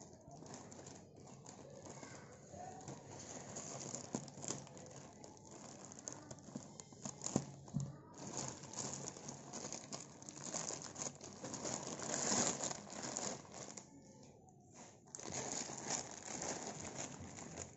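Plastic courier mailer and packaging crinkling and rustling as they are handled and opened by hand, with irregular small crackles.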